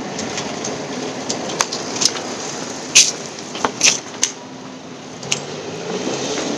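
Steady outdoor street background noise with about half a dozen short clicks and knocks scattered through it, the loudest about three and four seconds in.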